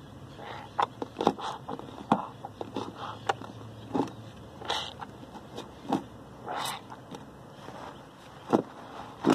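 Hands squishing and sloshing through thick soap suds in a plastic basin: irregular wet squelches and small splashes, a few a second.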